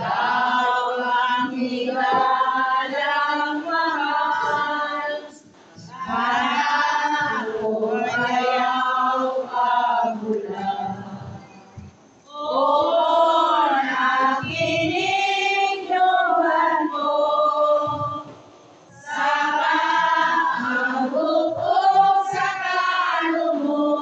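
Men's and women's voices singing a slow hymn together in long phrases, breaking off briefly between lines about every six seconds; it is the communion hymn of the Mass.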